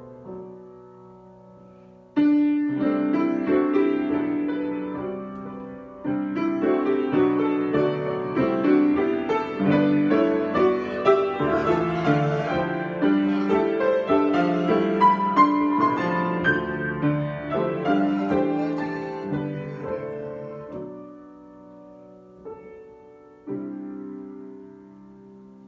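Solo piano improvisation: a loud chord about two seconds in, then busier playing of chords and runs that thins out and fades after about twenty seconds, with one soft chord near the end.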